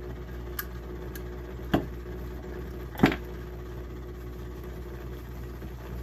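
Small metal hardware being handled and fitted on a horn assembly: a few short clicks and knocks, the sharpest about three seconds in, over a steady low hum.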